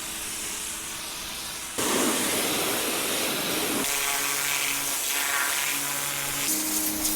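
Electric pressure washer spraying water: a steady hiss that gets suddenly louder about two seconds in, with the low hum of the machine underneath.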